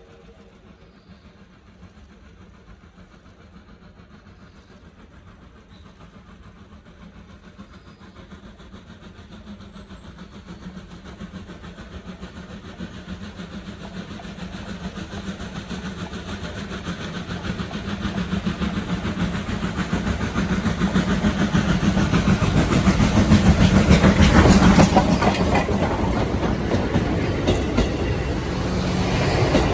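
A steam locomotive working a train towards the listener, growing steadily louder over about twenty seconds and loudest about 24 seconds in as it passes. It is followed by the carriages rumbling and clicking over the rail joints.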